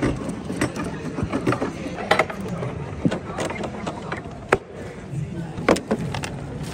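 Aluminium equipment case and its metal parts clanking and knocking as they are handled, a string of sharp, irregular knocks with the loudest about two seconds in and just before the end, over a low murmur of street background.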